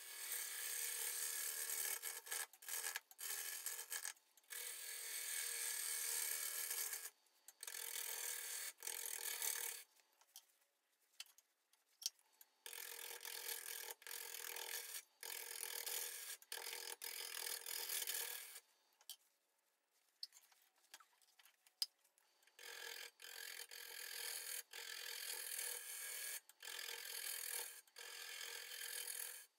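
Bowl gouge cutting a spinning, still-wet spalted sugar maple bowl blank on a wood lathe: a rough shaving noise. It comes in several cuts a few seconds long, separated by brief pauses.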